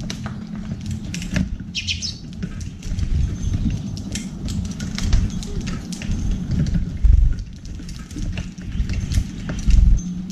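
Eurasian tree sparrows feeding at a metal tray of sunflower seeds: a steady patter of quick taps and clicks from beaks pecking and seeds, with wing flutters and a few brief chirps. Two heavy dull thumps, about seven and ten seconds in, are the loudest sounds.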